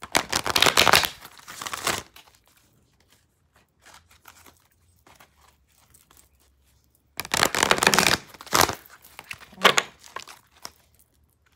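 Oracle cards from the Power Deck being shuffled by hand: two loud spells of rapid card shuffling, one at the start lasting about two seconds and another about seven seconds in, with quieter handling of the deck between.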